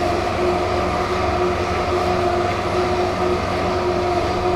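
Steady electric machine hum with a constant low drone and a fixed mid-pitched tone, unchanging throughout.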